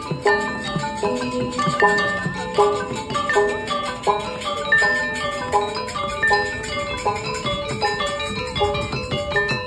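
Balinese gamelan music: metallophones struck with mallets, playing a fast run of ringing notes.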